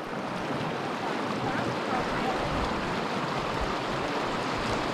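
Mountain creek water rushing over rocks, a steady even rush.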